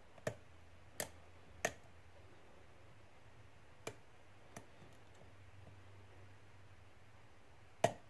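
Small sharp clicks of a hook pick working the pin stack of a Master Lock 410 LOTO padlock, six in all at uneven intervals. The loudest click, near the end, is the one the picker believes was pin 2 setting.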